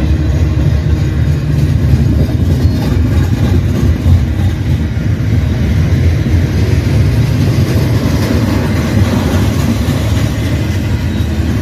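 Long CN freight train passing, a steady, heavy rumble of its wheels rolling on the rails.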